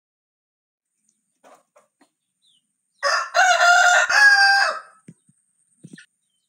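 Rooster crowing once, a loud cock-a-doodle-doo of about two seconds starting about three seconds in.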